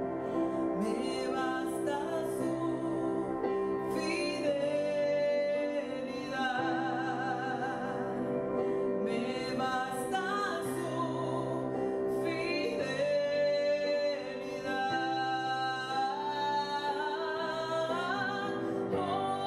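Woman singing a gospel song solo, holding notes with vibrato over instrumental accompaniment.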